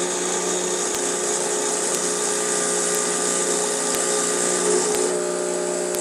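Tutto semi-automatic espresso machine's pump running steadily while brewing two espresso shots, a constant mechanical hum with a hiss over it.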